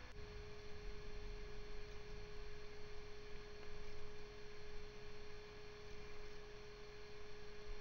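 A faint, steady single-pitch tone, like an electronic hum, holding one mid pitch without change, over a faint low rumble.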